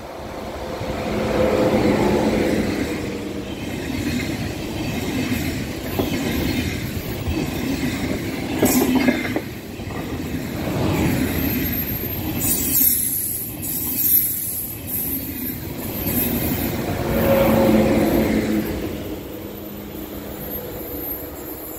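ICE high-speed electric train passing close by. The sound swells as the front of the train arrives, then holds a steady rumble and clatter as the coaches go past, with a high hiss partway through. A second loud swell comes near the end as the rear of the train passes, and then it fades away.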